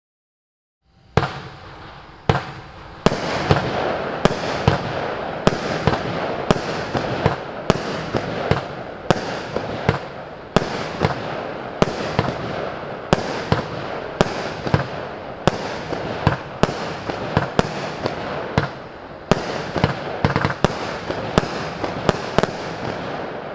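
Evolution Fireworks 'Hellkalt' 19-shot fireworks battery firing. After about a second of silence comes a long run of sharp bangs, one or two a second, as the shots launch and burst, with a steady hiss between them. The bangs stop near the end.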